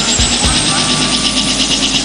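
Pulling truck's engine running at full throttle down the pull track: a loud, steady engine noise with a high whine that rises slightly.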